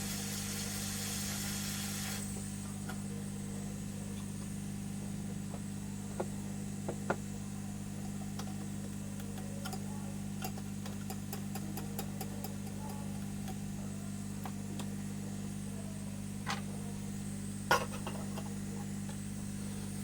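Hot air rework gun blowing with a high hiss that cuts off about two seconds in, over a steady low electrical hum from the bench equipment; after that, scattered light clicks and taps of small tools on the board.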